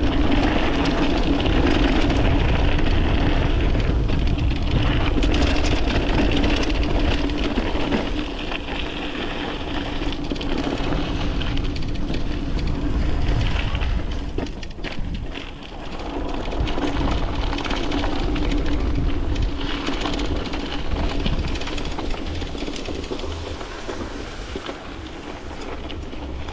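Mountain bike riding down a trail: tyres rolling and the bike rattling over rough ground, with a steady hum and wind rumbling on the microphone. It eases off about eight seconds in and fades toward the end.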